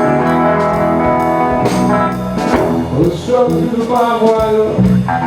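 Live band music: held guitar chords over a drum beat, with a bending, wavering lead melody line through the middle.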